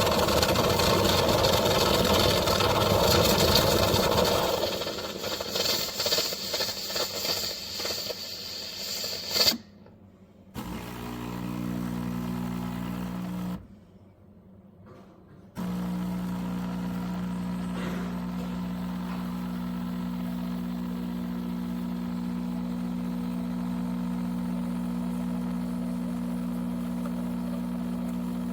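MAttinata 20-bar espresso machine running: loud and noisy for the first few seconds, then fading into rattling, with a sharp click about nine seconds in. After two abrupt dropouts it settles into a steady low hum of the pump.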